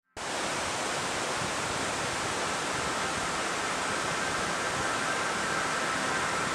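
A steady, even rushing hiss of outdoor ambience that cuts in abruptly just after the start. Faint high steady tones join it near the end.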